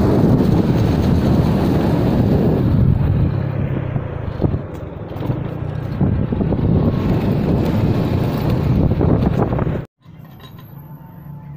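Wind on the phone's microphone and engine and road noise from riding along a road on an open vehicle, most likely a motorbike. It is loud and steady, then cuts off suddenly near the end to a much quieter background.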